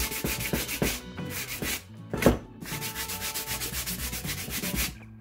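Hand sanding of a cured resin-and-fibreglass exhaust heat shield with a sanding block: quick back-and-forth rasping strokes, several a second, knocking the sharp edges off. They pause briefly about two seconds in, where a single knock is the loudest sound.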